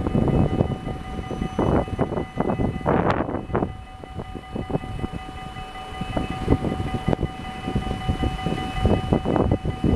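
Electric trams and street noise: a steady whine of several high tones over an uneven rumble with scattered knocks. It dips quieter from about four to six seconds in.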